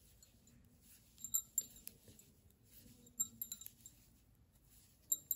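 Knitting needles clicking together as stitches are knitted: faint light clinks in small clusters, about a second in, a little past three seconds, and again near the end.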